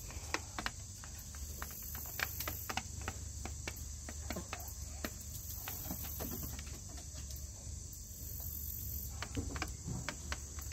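Chickens pecking greens off a metal baking tray: irregular sharp taps of beaks on the metal. Insects trill steadily and high in the background.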